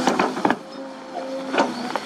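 Sunward SWE210 hydraulic excavator digging earth and rock: its engine hums steadily while the bucket, linkage and rocks give a few sharp knocks, loudest about half a second in and again past one and a half seconds.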